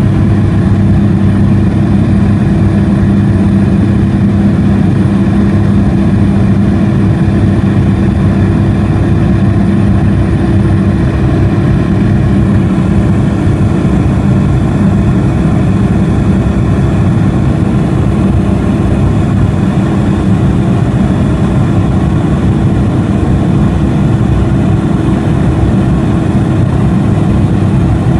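Pilatus PC-6 Porter's engine and propeller heard inside the cabin, a loud, steady drone in the climb just after take-off. The tone shifts slightly about twelve seconds in.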